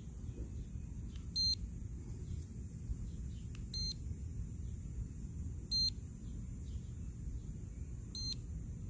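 A high electronic beep from the toy quadcopter set, sounding four times at even spacing about every two and a half seconds, over a steady low background rumble.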